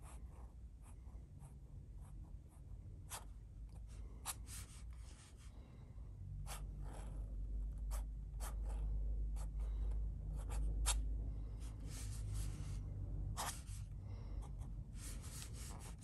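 The flexible gold nib of a Waterman 22 Taper Cap fountain pen scratching across paper in many short, quick strokes as calligraphy is written. A low rumble runs under the middle stretch.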